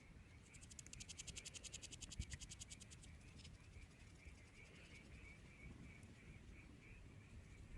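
Faint night chorus of small calling animals: a pulsing call repeats several times a second throughout, and from about half a second to three seconds in a fast, even, high-pitched trill of clicks joins it.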